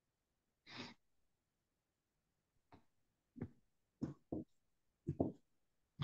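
A person's soft sigh about a second in, then several short, faint vocal sounds, like hesitant half-spoken syllables, before reading aloud starts.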